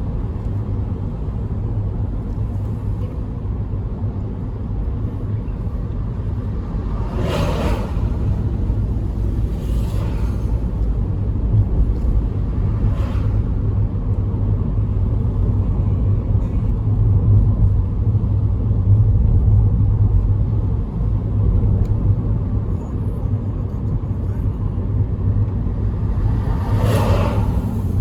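Steady low road rumble of a car being driven, with a few brief whooshes, the loudest about a quarter of the way in and near the end.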